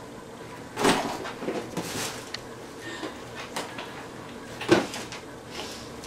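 Household objects being picked up and set down at a wooden dresser: a few knocks and clicks with rustling between, the sharpest knock about three-quarters of the way through.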